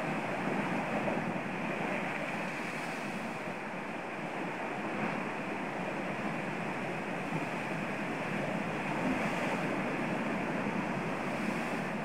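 Sea surf breaking on a rocky shore: a steady, continuous rush of waves.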